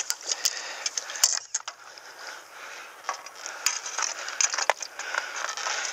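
Scattered sharp clicks and knocks with a light water wash, from handling a landing net that holds a large black carp in the shallows.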